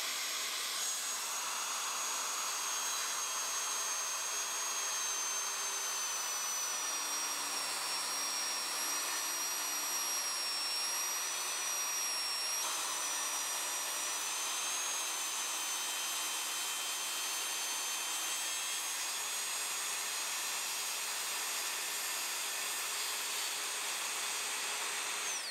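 Festool TSC 55 REB cordless track saw cutting across the bottom of a pine door along its guide rail, with a dust extractor drawing through the hose attached to it. The sound is a steady high whine over a rushing noise, and it stops abruptly at the end.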